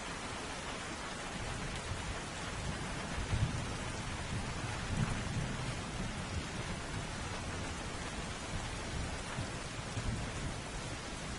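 Steady heavy rain falling, with low rolling thunder that swells a few times, loudest about three and a half seconds in and again at around five seconds.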